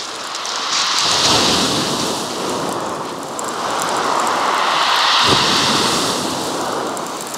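Sea waves surging up a shingle beach and dragging back over the pebbles, swelling twice a few seconds apart.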